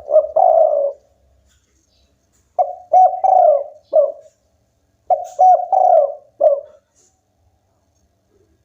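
Spotted dove (tekukur) cooing close up: three multi-note coo phrases about two and a half seconds apart.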